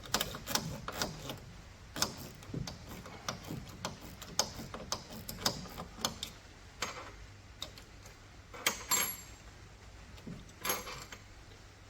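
Spanner undoing small bolts: a run of irregular metal clicks and taps, a few louder knocks near the middle and near the end.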